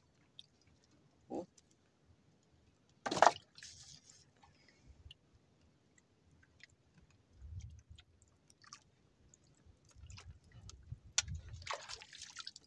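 Small clicks and crackles of a handline and hooks being handled, with one short, louder sound about three seconds in. Near the end, water splashes as the line goes over the side of the boat.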